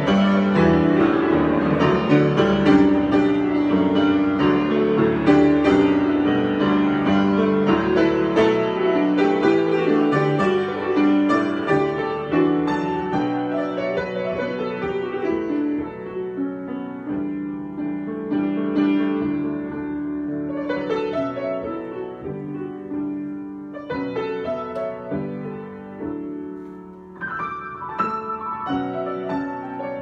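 Grand piano played solo in a free improvisation, with dense chords and runs that grow softer in the second half.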